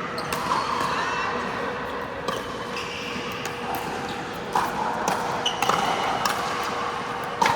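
Pickleball paddles hitting the hollow plastic ball during play, a series of sharp hits at uneven intervals.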